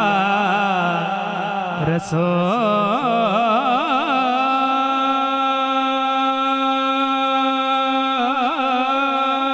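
A male naat reciter singing a long wordless melismatic line, wavering ornaments at first, then one long held note for about four seconds before breaking into ornaments again.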